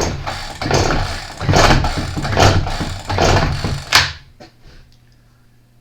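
Stihl FS40E trimmer's recoil starter pulled about five times in quick succession, cranking the engine over for a compression test, then stopping about four seconds in.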